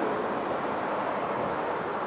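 Steady city traffic noise: a continuous rumble and hiss with no distinct events, easing slightly.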